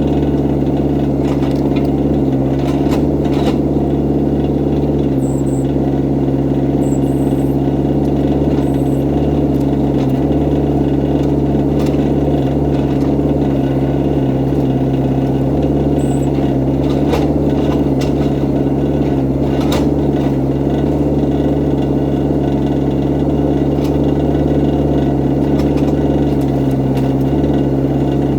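Excavator's diesel engine running steadily at a constant speed, with a few sharp clicks and some brief high squeaks from the machine.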